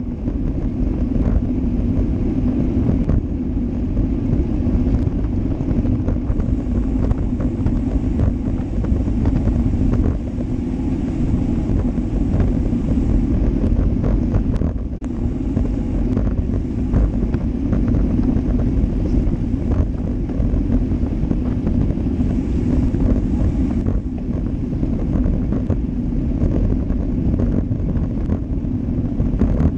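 Steady rushing wind buffeting on the microphone of a GoPro Hero Session mounted on a road bike riding at speed, mixed with road-tyre noise on asphalt.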